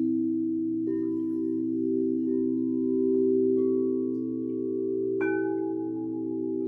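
Singing bowls ringing in long overlapping tones. A new bowl is struck about a second in, another about three and a half seconds in, and a brighter one about five seconds in, each joining the sustained, slightly wavering ring of the others.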